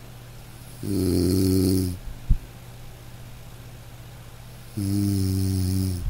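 A man snoring in deep sleep: two snores, each a little over a second long, starting about four seconds apart, with a short click just after the first.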